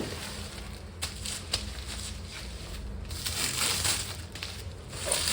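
Packaging being cut and torn open with scissors: irregular crinkling and scraping, with a couple of sharp clicks in the first second and a half and a denser rustle in the last couple of seconds.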